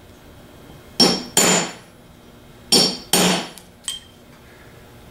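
Hammer striking a chisel to stake the cast drive-end housing of a 42MT starter around its new bushing, so the bushing can't work its way back out: four sharp metallic blows in two quick pairs, each ringing briefly, followed by a light click.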